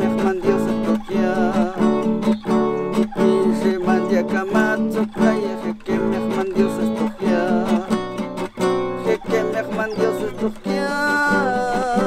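A man singing a short chorus in the Mam language to his own strummed acoustic guitar. The strumming keeps a steady rhythm under a wavering sung line.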